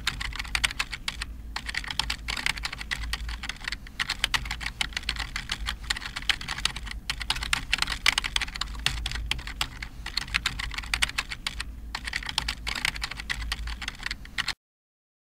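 Rapid typing on a keyboard: a dense run of clicks with brief pauses about 1.5, 4, 7 and 12 seconds in, over a steady low hum. It stops suddenly just before the end.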